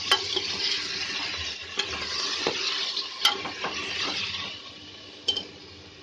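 Mutton pieces sizzling in hot mustard oil in an aluminium pressure cooker while a steel ladle stirs them, clinking against the pot several times. The sizzle fades about four and a half seconds in.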